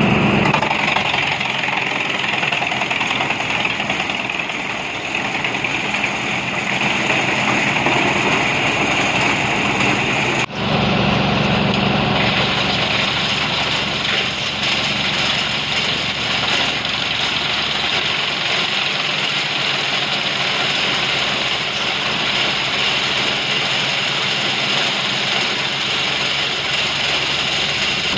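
Pezzolato PTH 30/50 tractor-PTO wood chipper running at speed and chipping crane-fed branches, with the tractor engine working under load: a loud, continuous dense grinding noise, with a brief dropout about ten seconds in.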